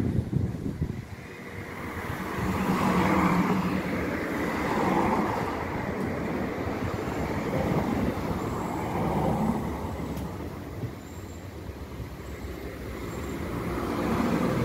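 Road traffic: cars passing one after another on the street, each swelling and fading, with a car going by near the end.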